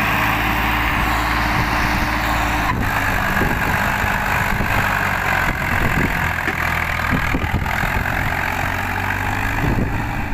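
Standard tractor's diesel engine working under load as it drags a loaded trailer through loose sand. Its steady running note holds for the first few seconds, then turns rougher and less even as the tractor pulls away.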